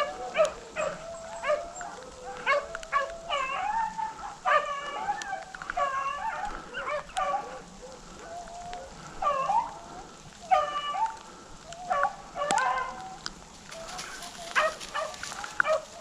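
A pack of rabbit hounds baying while running a rabbit: many voices overlapping in broken, bending howls and yelps. There is one sharp crack about twelve seconds in.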